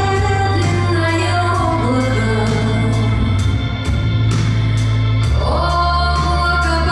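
Music with a singing voice over sustained, held bass notes and an organ-like keyboard.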